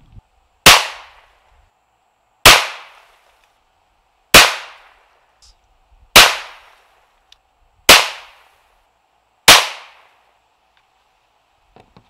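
Six shots from a .22 WMR (.22 Magnum) rifle, spaced a little under two seconds apart, each a sharp crack with a short ringing tail. The first three are CCI hollow point rounds and the last three are CCI V-Max rounds.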